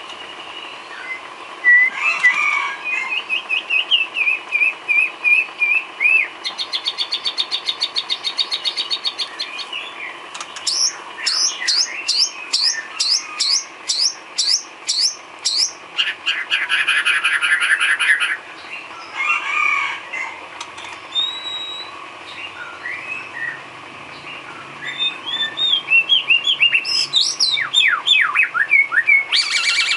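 White-rumped shama (murai batu) singing a long, varied song: whistled phrases, fast rattling trills, and a run of repeated down-slurred notes about two a second.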